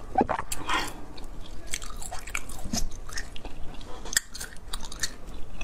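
Close-miked chewing of crunchy frozen basil-seed ice, a quick irregular run of small crunches and clicks.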